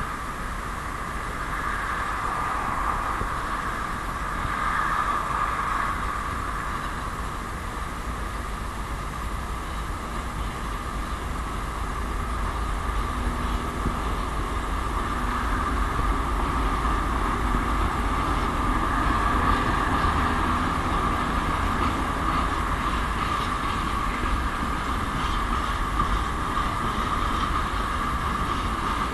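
ST44 (M62-class) diesel-electric locomotive's two-stroke V12 diesel working hard as it pulls away with a freight train. A steady engine note over a low rumble grows louder through the second half.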